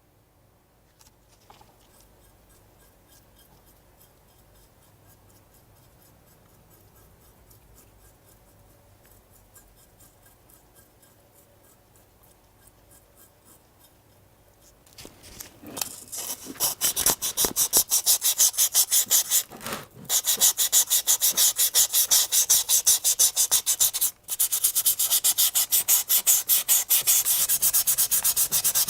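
Sanding by hand with fast back-and-forth strokes. It starts as faint scratching, then gets much louder about halfway through and keeps a steady, quick stroke rhythm, broken by two short pauses.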